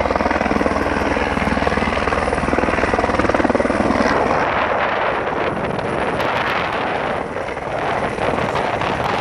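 Firefighting helicopter flying low overhead, its main rotor beating steadily with the engine running.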